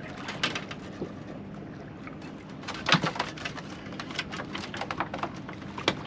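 Small boat's engine idling steadily, with a few sharp knocks and clatters on board, the loudest about three seconds in.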